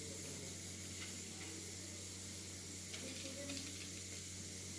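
Steady low electrical hum with an even hiss, and a few faint clicks.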